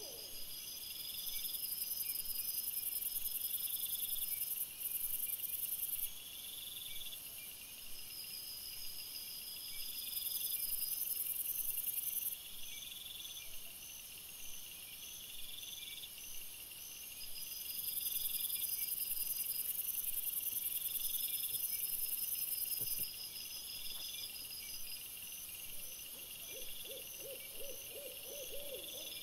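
Night insects, crickets and bush crickets, chirring in a high-pitched pulsing chorus, growing louder for several seconds three times, heard at double playback speed. A quick run of short, pitched sounds comes a few seconds before the end.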